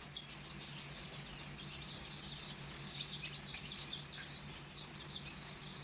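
A brood of newly hatched chicks peeping, with many short, high, falling peeps overlapping and repeating throughout, over a faint steady low hum.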